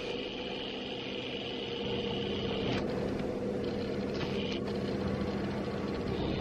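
An SUV's engine running at idle: a steady, even hum.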